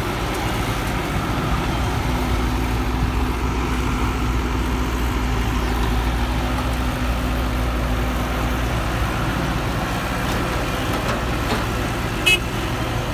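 Heavy diesel machinery running steadily with a low rumble, a faint steady hum over it for much of the time, and one short sharp knock near the end.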